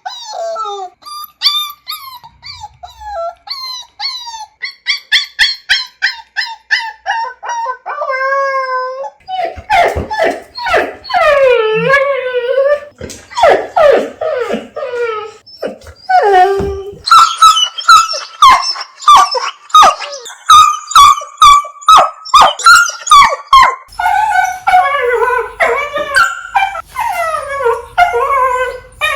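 Dogs whining and crying: a long string of short, high-pitched whines and whimpers, many sliding down in pitch. About eight seconds in comes a longer, wavering howl-like cry, and from about halfway the whines repeat roughly twice a second.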